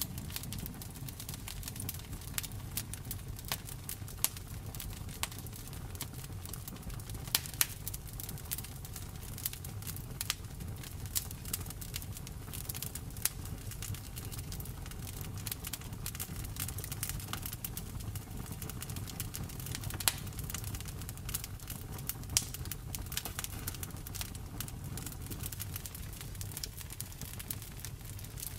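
Wood campfire burning, with frequent irregular sharp crackles and pops of the burning wood over a steady low rumble.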